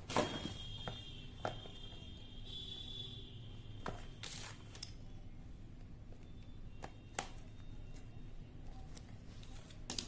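Hands handling a smartwatch's packaging: scattered light taps and clicks, a handful spread over several seconds. A faint high steady whine sounds through the first three seconds.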